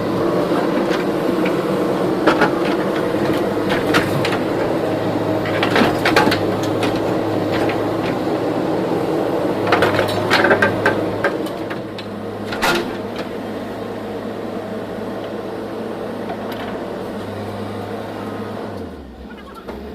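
JCB 3DX backhoe loader's diesel engine running steadily, with sharp metallic knocks and clanks now and then from the working machine. The engine sound drops a little about two-thirds of the way through.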